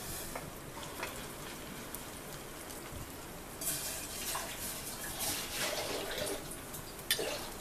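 Shrimp and lentil fritters deep-frying in hot oil: a steady sizzle with small crackles. It grows louder a little past halfway as another spoonful of batter goes into the oil. There is a sharp tap near the end.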